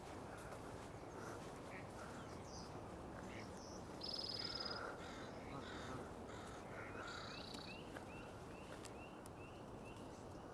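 Wild birds calling over a steady low background hiss. There are buzzy high calls about four and seven seconds in, and a run of short rising chirps repeats through the second half.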